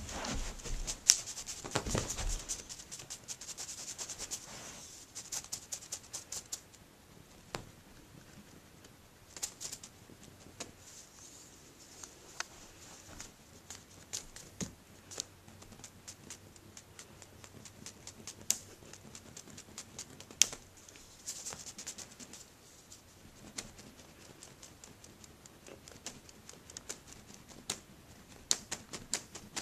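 A cat's paws and claws scratching and scuffing on carpet, with many irregular light clicks, busiest in the first several seconds and sparser after.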